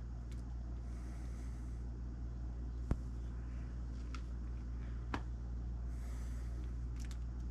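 Room tone: a steady low hum, broken by a sharp click about three seconds in, a fainter click around five seconds, and two short soft hisses.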